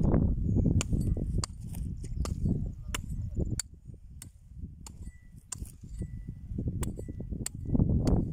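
A small hand hoe striking dry, stony soil in a series of sharp, irregular knocks, about one or two a second, as it opens holes for sowing corn, over a low rumble that dips in the middle and rises again near the end.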